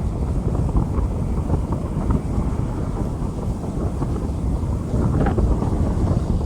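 Rain falling on a street, heard as a dense steady hiss under a heavy low rumble, with a few brief louder splashes about five seconds in.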